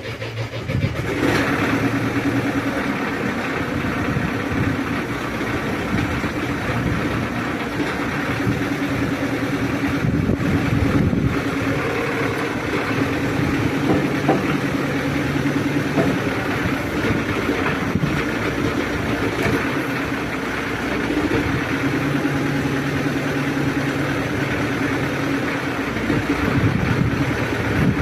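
Excavator's diesel engine running, picking up about a second in and then working steadily, its lower note coming and going as the machine is operated.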